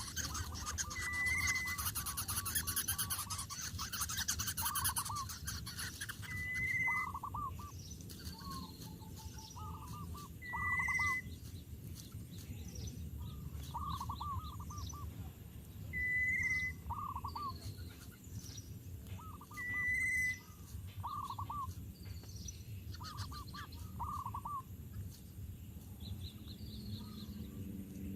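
Birds calling: a short, clear whistled note repeats every four to five seconds among many quick chirps and trills. A dense rasping hiss fills the first six seconds.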